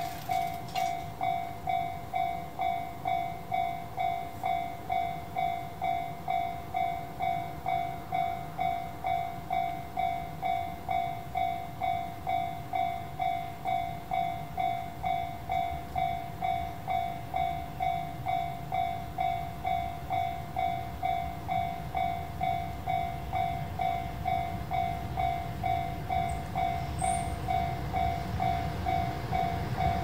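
Japanese railroad crossing's electronic warning bell ringing in an even, repeating ding, about three strikes every two seconds, while the crossing is closed for an approaching train. A low rumble grows under it near the end.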